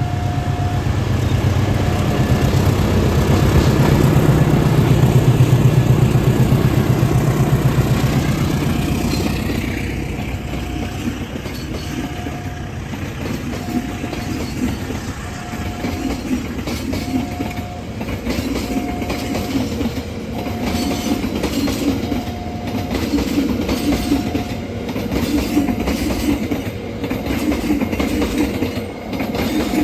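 A train passing: a loud low rumble that builds to its loudest around five seconds in and fades by about nine seconds, followed by the rhythmic clatter of wagons over the rail joints. Throughout, a short beep repeats about every second and a half to two seconds.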